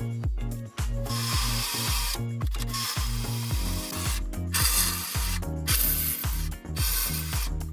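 Background music with a pulsing bass line that steps between notes and a fast, steady beat, with bright hissing layers cutting in and out in blocks.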